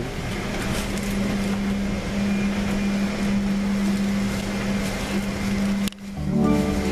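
Steady airliner cabin noise: ventilation air with a low, even hum. About six seconds in it cuts off abruptly and music with plucked-string notes starts.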